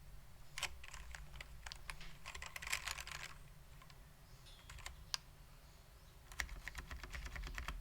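Typing on a 60% mechanical keyboard with lubed SKCM Black Alps switches on a stainless steel plate, under vintage Alps PBT keycaps. The keystrokes are irregular, with a quick run of strokes about two to three seconds in. After a pause broken by a single stroke, the typing picks up again near the end.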